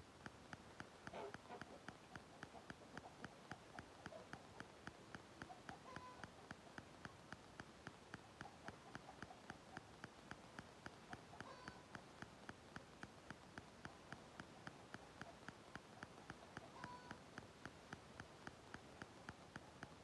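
Near silence: faint room tone with a steady, regular ticking a little under three times a second, and a few faint short chirps spaced several seconds apart.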